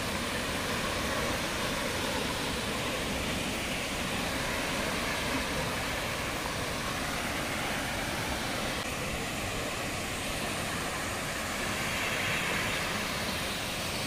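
Steady rushing noise of a waterfall, with a low rumble under it and no distinct events.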